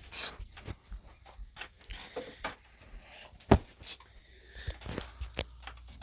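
Irregular clicks and knocks of hands handling the plastic parts of a washing machine's drain pump, with one sharp, louder knock about three and a half seconds in.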